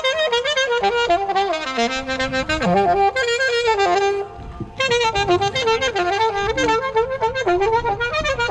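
Live band music: a reedy instrumental lead melody over bass, pausing briefly about four seconds in before carrying on.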